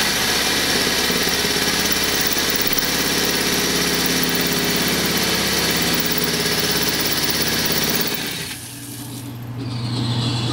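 Power saw cutting through the steel shell of an air-conditioner compressor with a steady, loud running sound. About eight seconds in, the cutting sound stops and a steady low hum takes over.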